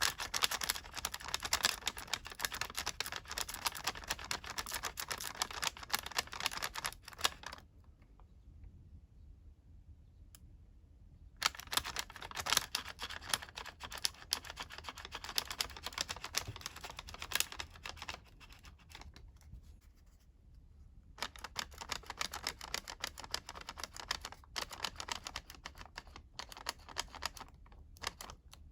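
Colored origami paper being folded and creased by hand, a crisp crinkling and rustling in three long stretches with short quiet pauses between them.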